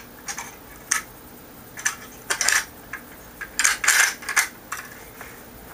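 Metallic clicks and clatter from a Kalashnikov rifle's action being worked by hand as the bolt is held back and an open bolt indicator is fitted into the receiver. The clicks come irregularly, with the loudest run of them about four seconds in.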